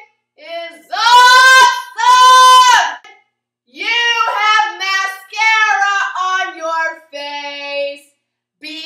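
A young woman's voice doing loud, high-pitched mock bird calls: two long held notes, then a run of shorter, wavering, breaking notes.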